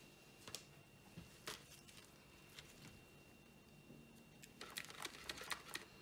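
Quiet handling noise from gloved hands picking up and holding a Ferrero Duplo tub: a few light clicks, then a short flurry of clicks and rustles near the end, over a faint steady high whine.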